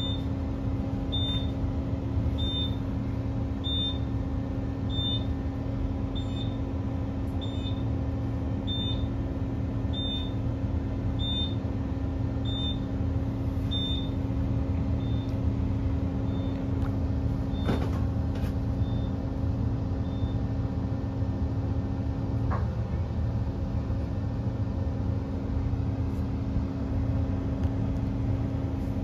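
Interior of a Queensland Rail NGR electric multiple unit standing at a station: steady hum of the train's onboard equipment with one steady tone, which shifts slightly about two-thirds of the way through. A high beep repeats about once every second and a bit, fading out over the first fifteen to twenty seconds.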